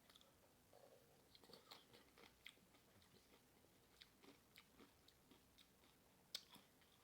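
Faint close-up chewing of Doritos nachos, a string of irregular short crunches with the loudest one about six seconds in.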